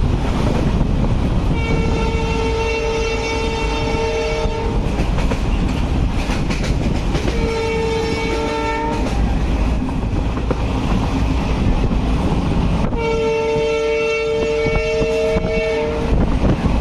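A train's horn sounding three times, a long blast, a shorter one, then another long one, over the steady rumble and rattle of the moving train.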